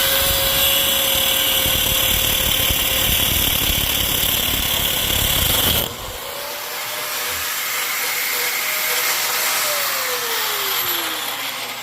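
A loud electric metalworking tool runs with a harsh, crackling noise and a steady whine, then cuts off sharply about six seconds in. A quieter whine follows and slides down in pitch near the end.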